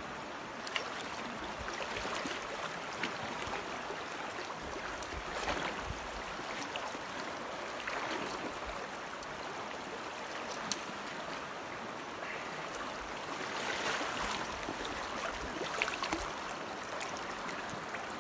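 Shallow river running over a stony bed: a steady rush of water, with a few brief sharp clicks and short swells in level.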